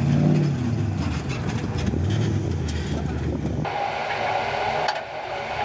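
Off-road race truck engine revving up and down as the truck drives past on dirt, with crackles and rattles. About three and a half seconds in, the sound switches to the engine's steady drone heard from inside the cab, with a constant whine.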